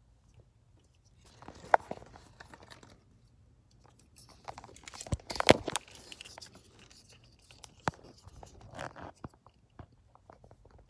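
Wires and plastic wiring-harness connectors being handled under a car's dashboard: rustling and crackling in three bouts, with several sharp clicks, the loudest about five and a half seconds in.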